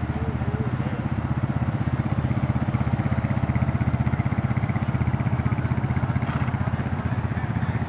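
A motor vehicle's engine running steadily with a fast, even throb.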